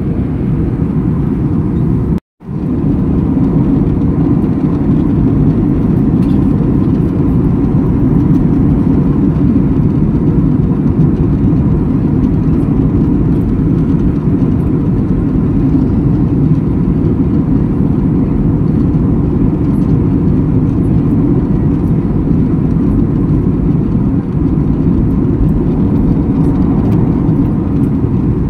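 Jet airliner cabin noise in flight: a loud, steady drone of engines and rushing air. It cuts out for a moment about two seconds in.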